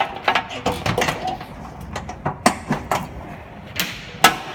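A quick, irregular series of clicks, knocks and clatters from small hard objects being handled, with one sharp knock shortly after 4 seconds in.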